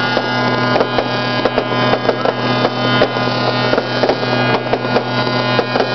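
Fireworks crackling and popping in quick, irregular succession over a steady low hum and sustained tones.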